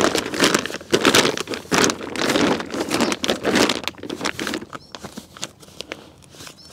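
The deflated PackLite inflatable kayak's polyester hull fabric rustles and crinkles as it is rolled and folded by hand. The rustling is dense for the first four and a half seconds or so, then thins to quieter, scattered rustles.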